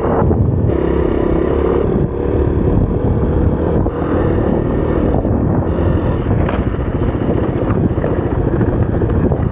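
Kawasaki KLX300's single-cylinder four-stroke engine running steadily under way on a dirt track, mixed with heavy wind buffeting on the action camera's external microphone.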